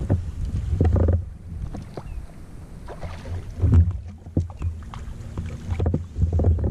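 Fishing kayak on choppy open water: wind buffeting in uneven gusts with water slapping the hull, and scattered light clicks and knocks as a fish is fought on a spinning rod.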